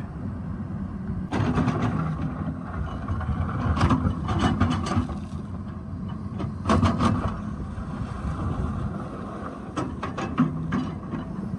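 Excavator's diesel engine running steadily, with knocks and scrapes of the bucket working rock several times.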